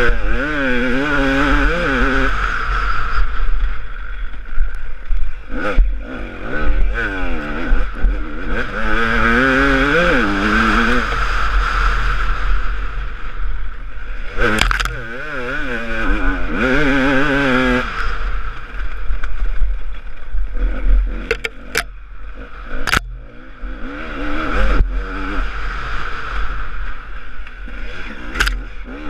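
Husaberg TE 300 two-stroke single-cylinder enduro engine running hard off-road, its pitch swinging up and down as the throttle opens and closes, with wind noise and scattered sharp knocks.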